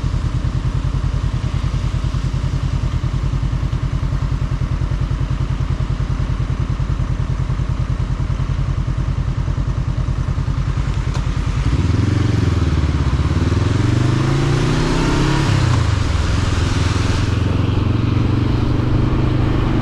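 Motorcycle engine idling with an even low pulse, then about twelve seconds in it pulls away, revving up and down as it runs through the gears, with wind noise rising as it gathers speed.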